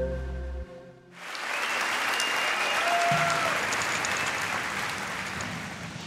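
Intro music ending about a second in, followed by an audience applauding, the applause slowly easing off near the end.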